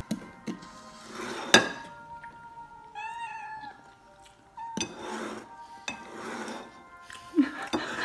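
A cat meows once, about three seconds in, with a few light clinks of chopsticks against a bowl.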